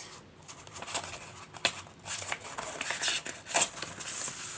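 Sheets of printed scrapbook paper being handled and shuffled: short, irregular rustles and crinkles.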